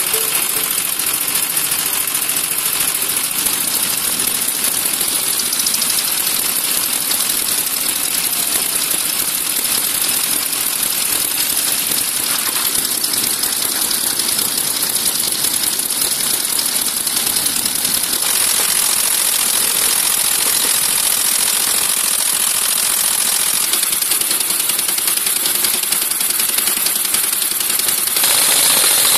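Veteran single-cylinder motorcycle engine running on its stand with a steady mechanical clatter. About a second from the end it turns a little louder, with the sound coming from close to another early single-cylinder engine.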